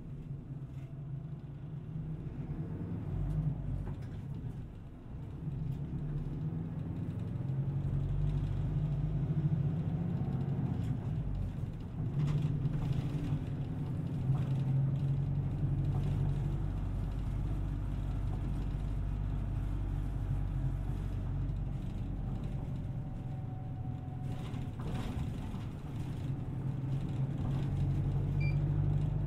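A small city bus heard from inside the cabin while under way: its engine and road rumble are steady and low, and the engine note swells and eases with the bus's speed, dipping briefly a few times.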